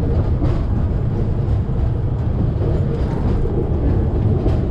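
Circumvesuviana ETR 211 electric train running along the track, heard from inside the carriage: a steady low rumble of wheels on rails with a few light clicks.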